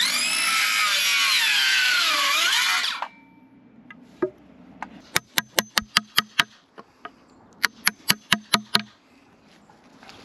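Cordless circular saw cutting through a round robinia (acacia) hardwood rail for about three seconds, its whine dipping in pitch as the blade loads up in the cut, then stopping. After a pause, a hammer strikes a wood chisel in two quick runs of six or seven sharp knocks, about five a second, trimming the joint.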